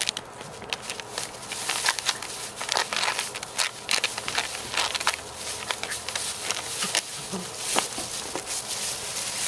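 Dry fallen leaves crunching and rustling in quick, irregular crackles as a corgi digs and shoves a plastic flying disc through them.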